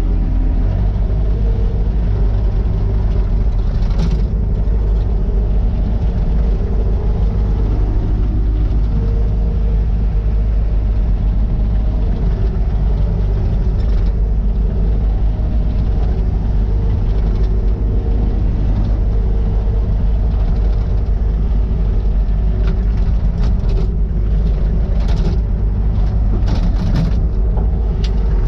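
Takeuchi TL150 compact track loader's diesel engine running steadily, with a pitched whine that comes and goes. Several sharp clanks sound over it, most of them in the last few seconds.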